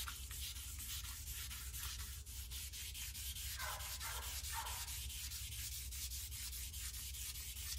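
Fine-grit wet/dry sandpaper on a sponge scrubbed back and forth by hand over a boat's painted hull, in quick repeated strokes several times a second. It is wet sanding under heavy pressure, cutting through oxidation down to the clear coat.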